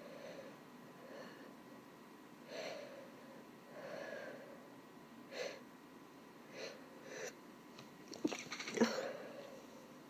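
A woman's breath catching in short hitching gasps about once a second as a sneeze builds, then a stifled, held-back sneeze near the end, the loudest sound, with sharp clicks from the throat and nose.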